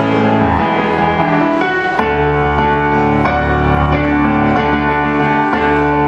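Piano music: full chords over a deep bass, with the harmony changing every second or two.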